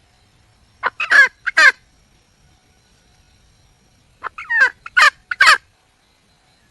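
Junglefowl hen calling for a mate: two bursts of short, loud, downward-sweeping calls, three or four about a second in and four more in quick succession from about four seconds in.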